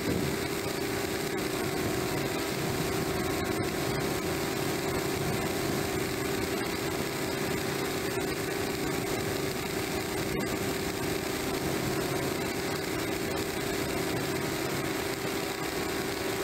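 DJI F550 hexacopter's six brushless motors and propellers whining steadily in flight, heard from the camera mounted on the aircraft.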